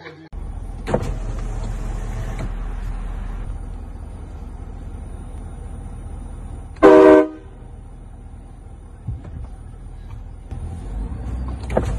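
Car horn honking once, a short blast of about half a second a little past the middle, over a steady low rumble.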